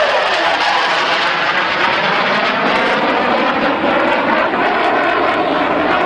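Low-flying fighter jet passing: its whine drops in pitch over the first half-second as it goes by, then a loud, steady jet roar.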